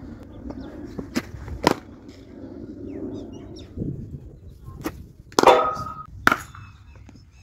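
Sharp knocks of cricket net practice: a red leather cricket ball bouncing on the pitch and striking the bat as a shot is played. The loudest knock comes a little over halfway through, with a brief ringing after it.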